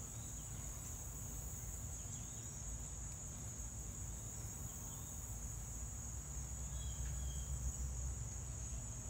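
A steady, high-pitched trill from insects, unbroken throughout, over a low rumble of wind or handling on the microphone, with a few faint short chirps.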